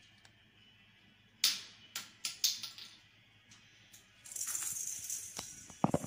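An African grey parrot plays with a plastic toy ball on the wire floor of its cage. About a second and a half in come a few sharp clicks and knocks, and from about four seconds a steady rustling rattle.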